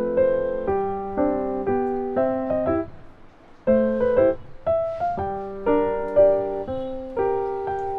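Background piano music: a slow melody of single struck notes that each ring and fade, with a brief pause about three seconds in.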